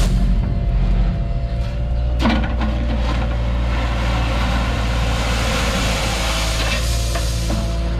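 Cat 303.5 mini excavator's diesel engine running steadily under working load while stripping stone, with a sharp knock about two seconds in and another near the end.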